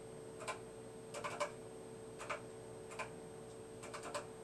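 Keys being typed one at a time on an IMSAI PCS-80/30 computer's keyboard: about eight sharp clicks at uneven spacing, some in quick pairs, over a faint steady hum. The keystrokes enter a breakpoint address and the command to start a program running.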